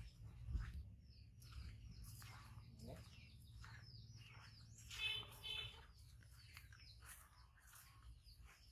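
Birds chirping and tweeting, many short calls, with a louder two-part call about five seconds in, over a faint low rumble.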